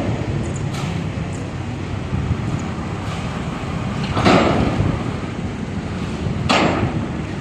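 A pile-driving rig at a construction site running, a steady low mechanical rumble. Louder rushing bursts come about one, four and six and a half seconds in.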